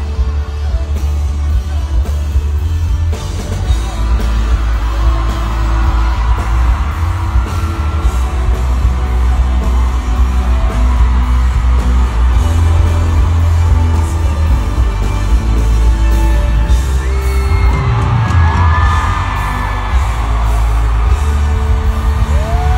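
Loud arena concert music with heavy bass, with the crowd singing and yelling along. High, held fan screams rise over it a few seconds before the end and again at the very end.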